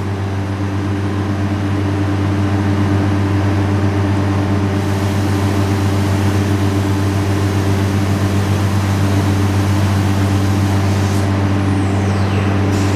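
Holz-Her Unimaster 7226M CNC router running a program with its spindle turning: a loud, steady mechanical hum, with a faint high whine that falls in pitch near the end.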